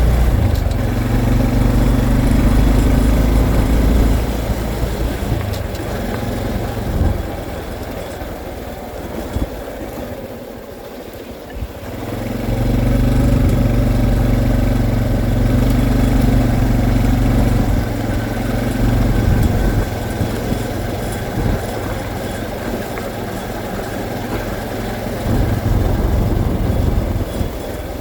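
Honda CT125's small single-cylinder four-stroke engine running under way, easing off to a quieter low in the middle and pulling strongly again after about twelve seconds.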